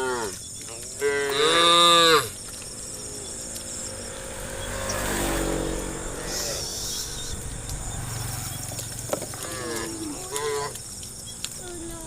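Cattle mooing: a loud, drawn-out moo about a second in, lower and quieter lowing in the middle, and a few shorter calls near the end.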